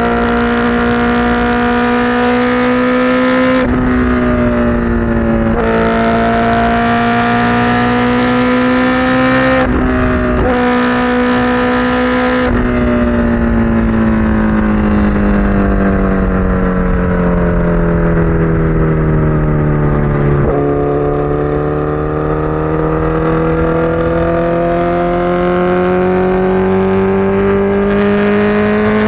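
Honda CBR1000RR Fireblade's inline-four engine on an SC-Project exhaust, running hard. Its note holds steady for about twelve seconds, with a hiss cutting in and out three times over it, then falls away slowly for several seconds, breaks about twenty seconds in, and climbs again.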